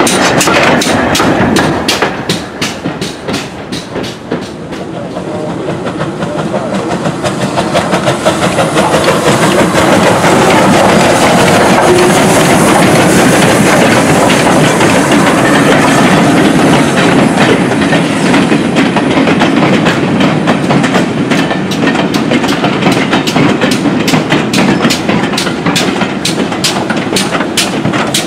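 Steam locomotives moving on the rails: rapid, regular clicking of wheels over rail joints at the start and again near the end, and in the middle a loud, steady rush of noise as the Southern West Country Class Pacific 34053 passes close by.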